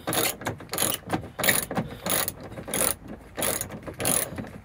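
Hand socket ratchet with a 14 mm socket clicking in short back-and-forth strokes, about two a second, as it backs out a seatbelt anchor bolt. The bolt is still binding on the way out, which the mechanic puts down to threadlock it might have on it.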